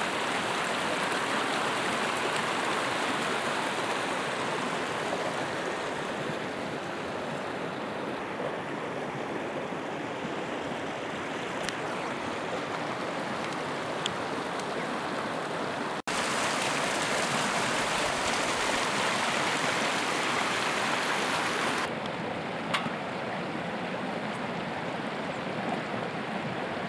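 A shallow mountain stream rushing steadily over rocks. The sound jumps in level abruptly about halfway through and again about five seconds later.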